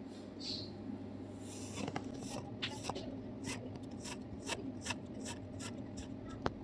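Kinetic sand being cut with a blade: a string of short, crisp crackles, about two or three a second.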